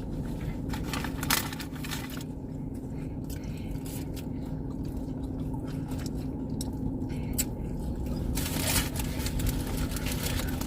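Steady low hum inside a car, with soft chewing and crunching of food and a few brief rustling scrapes, one about a second in and a noisier stretch near the end.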